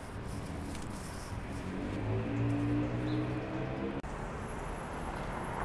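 City street traffic noise, with a car engine's steady hum rising out of it about two seconds in and ending about two seconds later.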